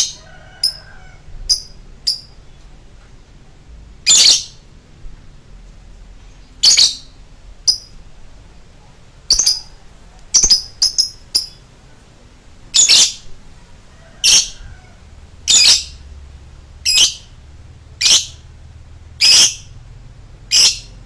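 Lovebird giving short, high-pitched calls, one after another every second or two, with a few quick doubled calls in places.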